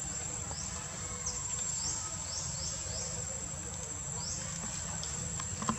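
Steady high-pitched insect drone, with several short rising chirps over it in the first few seconds and a low background rumble underneath.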